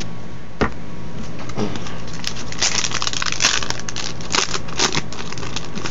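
Foil wrapper of a Magic: The Gathering booster pack crinkling and crackling as it is handled in the hands. There is a single knock about half a second in.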